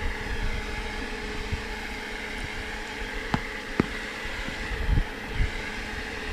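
Steady hum of a running baseball pitching machine, with two short clicks about three and a half seconds in.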